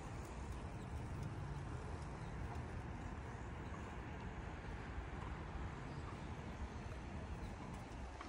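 Steady outdoor street noise with a low rumble.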